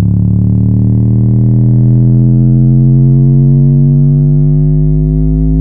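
Subwoofer playing a loud, deep bass tone that slowly rises in pitch.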